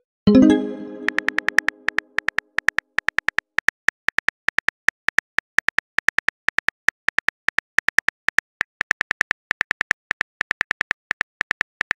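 Simulated phone keyboard typing clicks, quick and even at about five a second, as a chat message is typed out letter by letter. About a third of a second in, a ringing message tone sounds and fades over a second or so.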